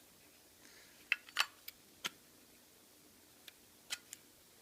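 Faint, small metallic clicks and taps from a Zippo lighter's steel case and insert being handled, about seven short clicks spread between one and four seconds in.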